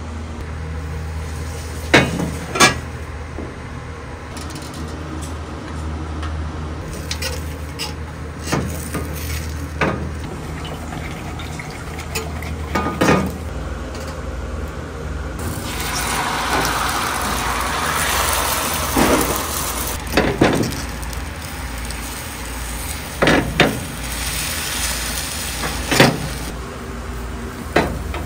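Beaten egg sizzling in hot oil in a square tamagoyaki pan, the sizzle setting in about halfway through and swelling. Sharp knocks and clacks of the pan and chopsticks come now and then over a steady low hum.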